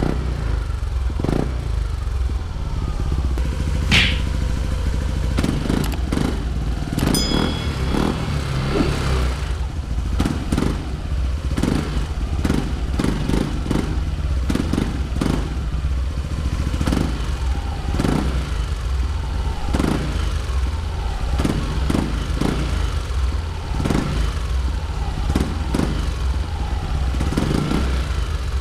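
Yamaha Aerox 155 scooter's single-cylinder engine running through a newly fitted Exos R6 aftermarket exhaust. It gives a steady, deep exhaust note broken by irregular thumps.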